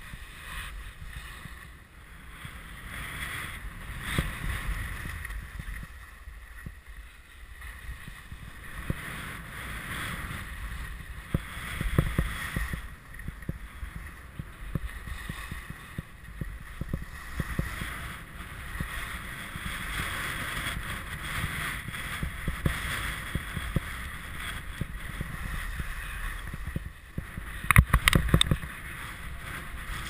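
Skis hissing and scraping over packed snow during a downhill run, with wind buffeting the microphone. A few sharp knocks near the end.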